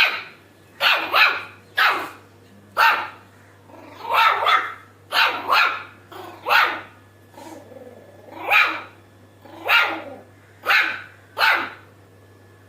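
Shih Tzu puppy giving about a dozen short, sharp barks, spaced unevenly with a brief lull just past the middle. The owner calls the sound her laugh.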